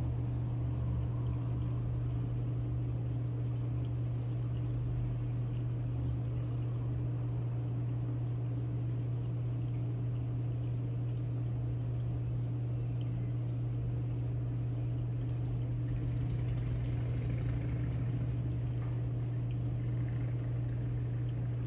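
Reef aquarium water circulating: water pouring and trickling steadily over a constant low hum, unchanging throughout.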